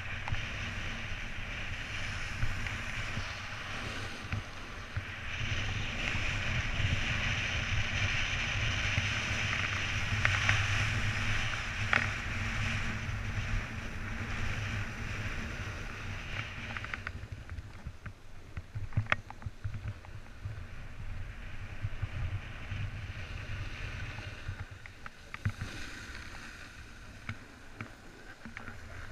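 A snowboard sliding and carving over groomed snow, its base and edges hissing and scraping, with wind rushing on the microphone. The hiss is loudest in the first half and drops off a little past halfway, with a few sharp knocks along the way.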